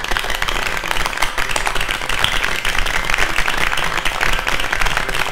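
Many people applauding: a dense, steady clapping of many hands.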